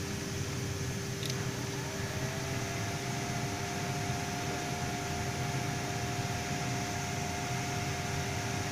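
A click, then the mini hoist's inverter-driven gear motor starts about two seconds in: its whine glides up briefly and then holds a steady pitch. A constant hum runs underneath.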